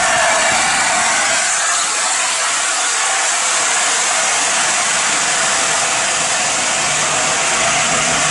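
Steady, loud hiss that holds unchanged, with little low rumble beneath it.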